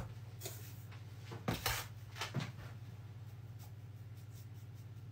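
Caster sugar being scooped from a plastic tub with a plastic scoop and tipped into a steel mixing bowl: a few soft scrapes and taps in the first half, the loudest about a second and a half in, over a faint steady low hum.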